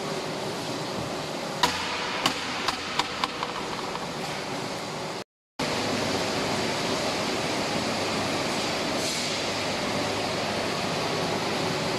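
Steady mechanical workshop noise, with a quick run of about six sharp knocks and clicks from just under two seconds in as the welded HDPE pipe is handled in the butt-fusion machine. The sound drops out for a moment about five seconds in, then the steady noise goes on.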